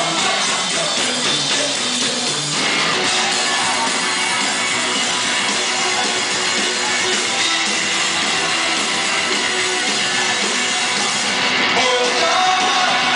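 Live punk rock band playing loud, with electric guitar, drums and a singer's vocals.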